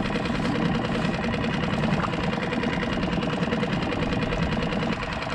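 Small boat motor running steadily, with a fast even rhythm.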